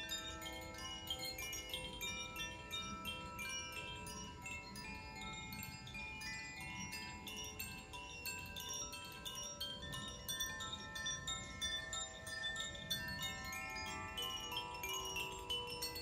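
Koshi chimes, bamboo tubes with tuned metal rods inside, being swung by hand so their clappers strike the rods in a continuous stream. Many ringing tones overlap and sustain into a dense, unbroken chord.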